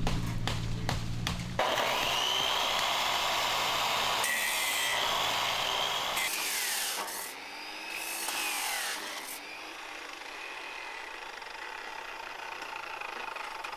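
Abrasive chop saw (cut-off saw) starting up about a second and a half in and cutting through metal square tubing, its motor pitch dipping and recovering as the wheel bites into the metal, then dying down to a quieter hiss after about nine seconds.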